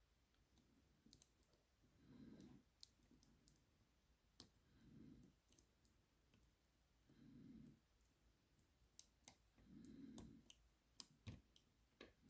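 Faint, sparse metallic clicks of a lever pick and tension wrench working inside a five-lever ERA 975 padlock as its levers are lifted and set, with a sharper click about eleven seconds in.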